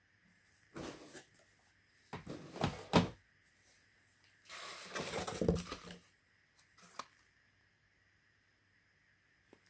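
Handling noises from a diecast model car and its packaging: three bursts of rustling and knocking, with a sharp knock about three seconds in and a light click about seven seconds in.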